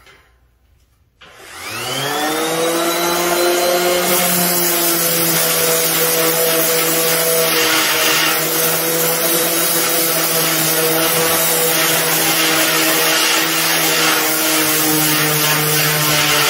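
DeWalt random orbital sander with 80-grit paper starting about a second in, its motor whine rising quickly to speed. It then runs steadily with a hiss of abrasive as it sands the sheet-metal grille.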